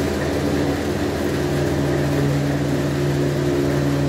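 Small clay mixing machine running with a steady hum and low drone while clay is fed into its hopper and pushed out through the steel nozzle.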